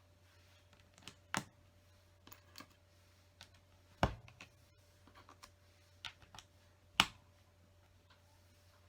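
Plastic LEGO bricks and tiles clicking and tapping as they are handled and pressed into place: scattered sharp clicks, the loudest about four and seven seconds in, over a faint low hum.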